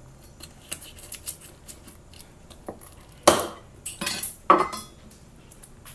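Kitchen utensils and dishes being handled at the counter: scattered light clicks and clinks, with a sharp louder knock about three seconds in and two more a second or so later.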